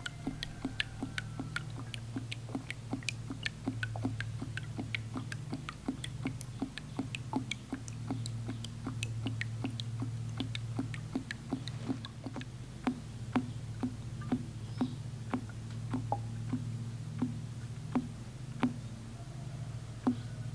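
A lidded 5-gallon plastic bucket draining through a small hole near its base into a rubber feed pan. Air glugs back into the bucket as sharp little clicks, about two or three a second, over a steady low hum. This is the vacuum-fed waterer filling its pan.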